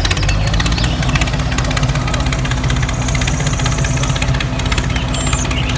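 Tractor engine running steadily with a rapid, even chugging beat.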